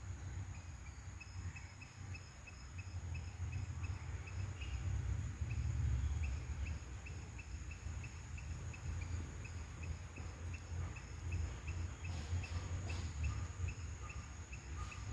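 Outdoor ambience: a low, uneven rumble underneath, a steady high insect-like drone, and a regular series of short high chirps at about three a second.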